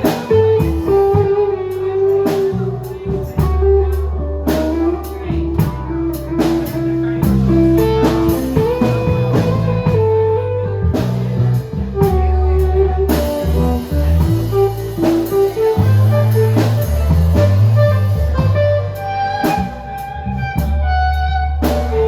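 Live band playing an instrumental passage: a lead guitar carries the melody in long held notes over bass and drum kit, with no singing.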